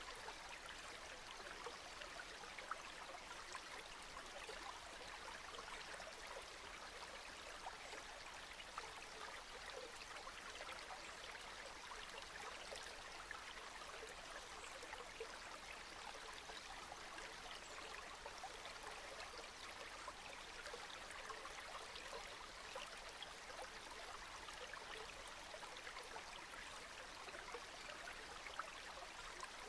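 Steady rainfall: an even hiss of countless small drops hitting, unchanging throughout, with no thunder or other events.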